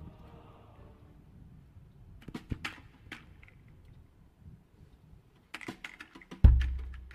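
Percussion in a live performance: two short clusters of sharp clicks and taps, then a single deep drum stroke near the end that booms and fades.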